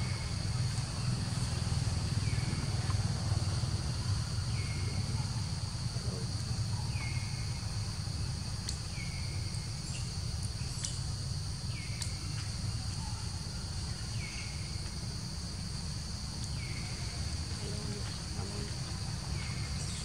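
Insects droning steadily in the forest, a high continuous buzz. Over it, a short falling call repeats about every two seconds, above a low rumble.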